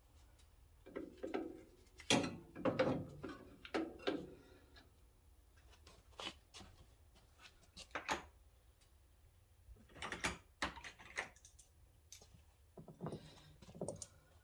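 Scattered clunks, knocks and clicks of a replacement alternator and its mounting hardware being handled and fitted onto the engine bracket of a John Deere 5055D tractor.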